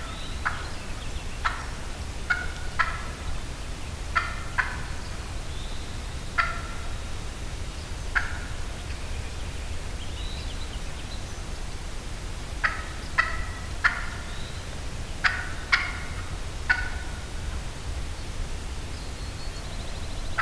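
Turkey calling: about fifteen short, sharp notes, some single and some in quick pairs or threes, spaced a second or two apart, with a pause of several seconds midway.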